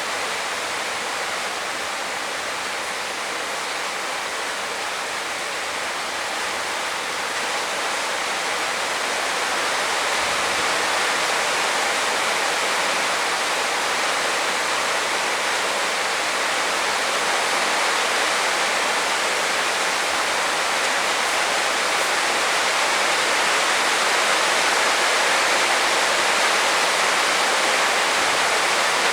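Heavy rain falling steadily, a dense even hiss that grows a little louder about ten seconds in.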